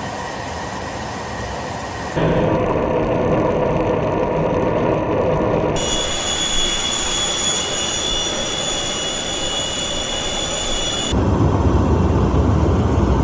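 Military jet aircraft in flight: steady engine and airflow noise that changes abruptly in tone at each cut, about two, six and eleven seconds in. A steady high-pitched whine runs through the middle stretch, and a deeper rumble takes over near the end.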